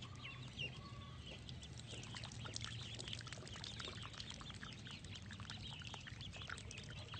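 A flock of ducklings peeping faintly, many short high cheeps overlapping one another.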